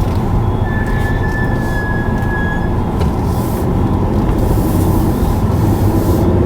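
Car driving, a steady road and engine rumble heard from inside the cabin. About a second in, an alarm sounds one steady high tone for about two seconds.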